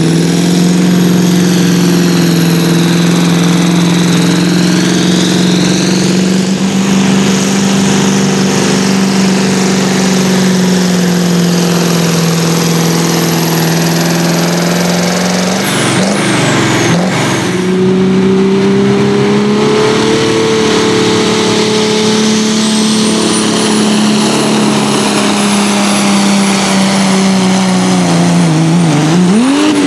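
Competition pulling tractors running at full throttle under the load of the weight sled. First a Fiat 750 pull tractor's engine holds a steady high pitch with a high whistle over it. About halfway there is a cut to a New Holland pull tractor's engine, also held steady under load, which dips in pitch near the end and then revs up sharply.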